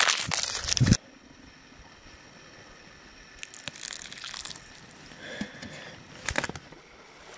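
Dry rolled oats poured from a bag into a collapsible plastic bowl, a dense crackling patter that stops abruptly about a second in. Then water poured from a pot onto the oats in the bowl, a quieter trickle in the middle, with a couple of clicks near the end.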